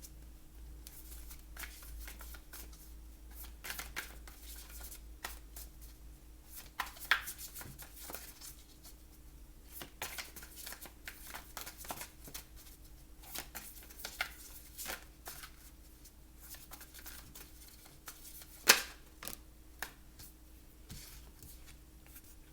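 Tarot cards being shuffled and handled: a continuous run of irregular soft riffling and tapping, with one sharp snap about three-quarters of the way through.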